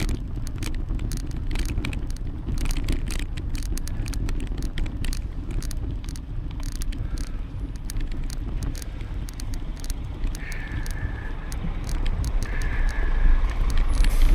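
Riding a bicycle: a steady low rumble of wind and tyres on the path, with scattered rattling clicks, most of them in the first half. Two short high tones sound in the second half.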